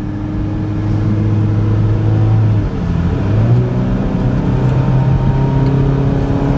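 Cabin sound of a 2014 Chevy Equinox's four-cylinder engine running at highway speed over steady road noise. The engine note dips briefly about two and a half seconds in, then holds steady at a higher pitch.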